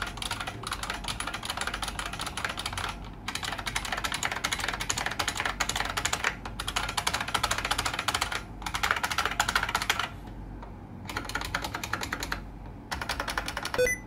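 Fast typing on a 1994 IBM Model M's buckling-spring keys: dense, rapid key clicks in runs of a few seconds, broken by short pauses.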